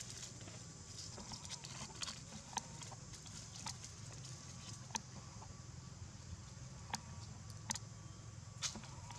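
Sparse sharp crackles and light rustles of dry leaves and twigs as macaques move and handle food on leaf-strewn ground, about half a dozen distinct clicks, over a faint steady background hum.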